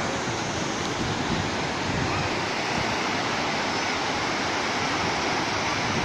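Sea waves breaking on a sandy beach: a steady rush of surf.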